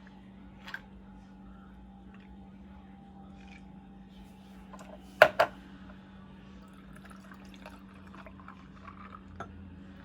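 Milk poured quietly into a cup of ice, then two sharp clinks in quick succession about five seconds in, followed by a few faint light knocks.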